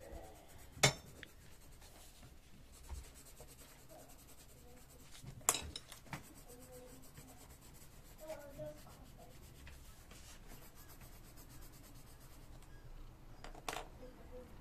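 Coloured pencil scratching faintly on paper as a page is coloured in, with three sharp clicks, about a second in, in the middle and near the end.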